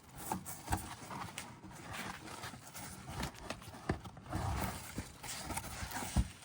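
Irregular clicks and knocks of hand tools and metal and plastic parts being handled while working under a car.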